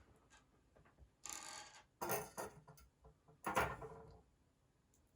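Small metal construction-set parts clicking and rattling as they are handled, in a few short bursts: one about a second in, another about two seconds in, and the loudest about three and a half seconds in.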